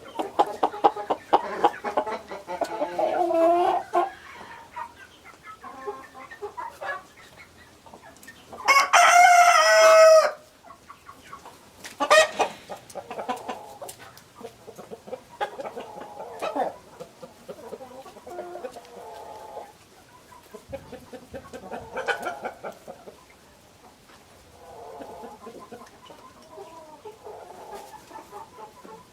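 Chickens clucking on and off, with one rooster crowing loudly once, about nine seconds in.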